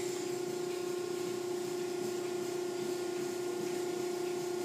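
A steady machine hum: one constant low tone with several overtones over an even hiss, unchanging throughout.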